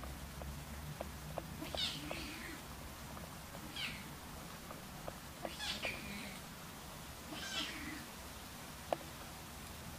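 A Siamese kitten mewing four times, short high-pitched calls about two seconds apart, with a few faint clicks between them, the sharpest near the end.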